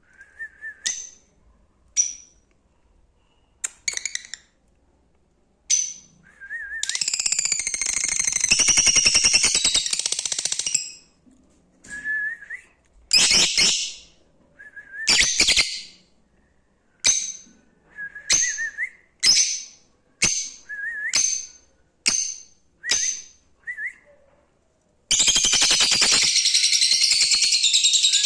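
Lovebirds calling: short sharp chirps and wavering squeaks every second or so, with two longer runs of loud, rapid chattering, one about seven seconds in and another starting near the end.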